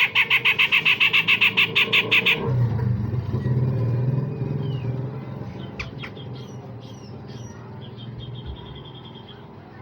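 Cucak jenggot (grey-cheeked bulbul) giving a fast, harsh rattle of sharp notes, about seven a second, for a little over two seconds. Scattered short chirps and a brief trill near the end follow. A low rumble runs underneath after the rattle stops.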